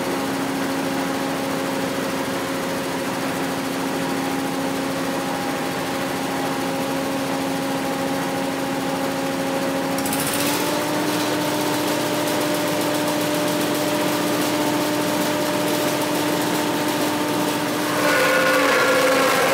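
Abaca decorticating machine running with a steady pitched hum. About ten seconds in its pitch steps up slightly. Near the end it grows louder and harsher as a stalk is pulled through it.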